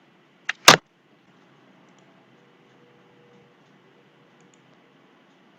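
Two sharp clicks a quarter second apart, the second louder, typical of computer mouse or keyboard clicks while pausing playback, then only faint steady hiss.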